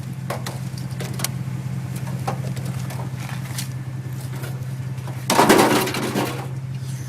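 Truck engine idling steadily, with scattered light knocks and one loud clatter a little past five seconds in.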